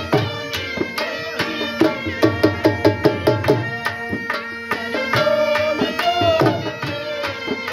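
Dhol drum beating a fast, steady rhythm under a been (gourd reed pipe) playing a wavering melody over a constant drone: folk music for jhumar dancing.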